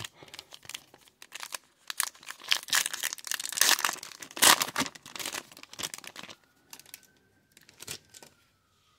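Foil wrapper of a trading-card pack crinkling and tearing as it is opened by hand, most intense around four to five seconds in, then dying down to a few light rustles near the end.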